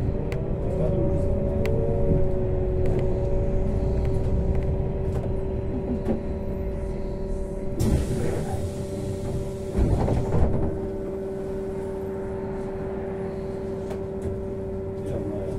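Inside a trolleybus: a low rumble with a steady two-note electrical hum as it slows to a stop. About eight seconds in comes a burst of hissing with a couple of knocks around ten seconds, then a quieter steady hum while it stands.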